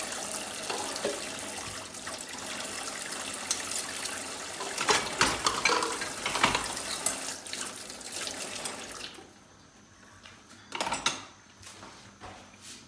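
Tap water running into a kitchen sink while dishes are rinsed, with light clinks and knocks of crockery. The running water stops about nine seconds in, followed by one short clatter.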